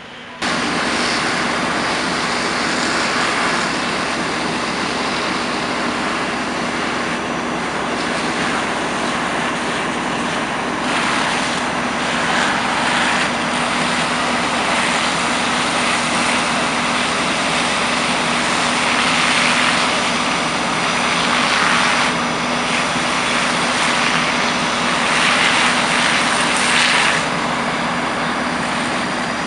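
Fire truck diesel engine running steadily at raised revs: a constant hum under a loud, even hiss, starting abruptly about half a second in.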